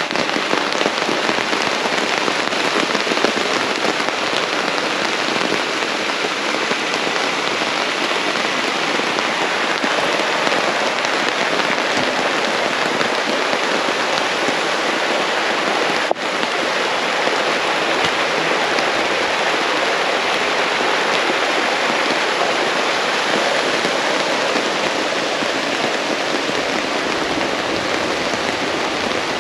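Steady rain falling, a dense even hiss, with a momentary break about sixteen seconds in.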